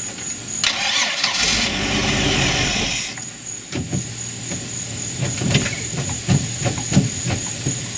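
4.3 V6 MerCruiser engine cranking on its starter without firing, turned over with the fuel pump disconnected to test fuel delivery. A loud hiss runs for about two seconds starting about a second in.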